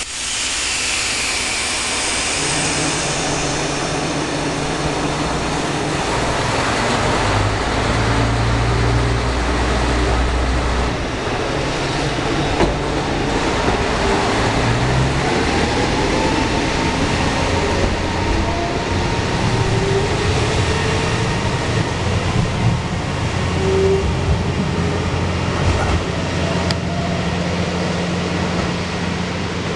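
KiHa 125 series single-car diesel railcar pulling away from a station platform. Its diesel engine revs up in steps as it accelerates, and its wheels click over rail joints as it passes and moves off.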